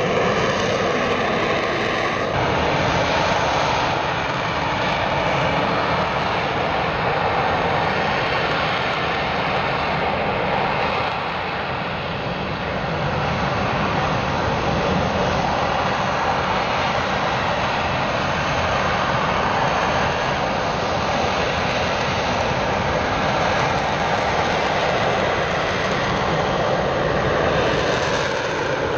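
Loud, steady jet engine noise of a military jet in flight, with a falling whine in the first two seconds.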